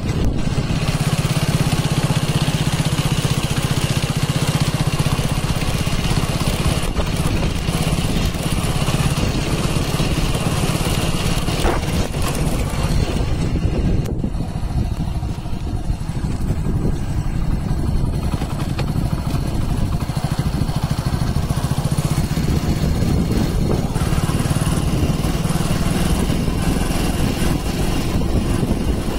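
Motorcycle engine running steadily while the bike is ridden along a sandy dirt track, heard from the rider's position with a steady hiss of wind and road noise over the engine hum.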